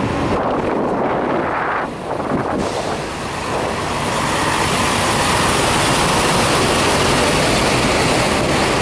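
A red Freightliner Cascadia semi tractor-trailer's diesel engine running as it rolls slowly past close by. The sound builds from about three and a half seconds in as the truck draws alongside, then holds steady and loud.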